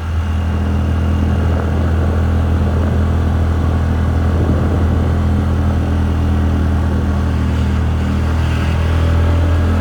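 TVS Ntorq 125 scooter's single-cylinder engine running at a steady, even pitch while riding.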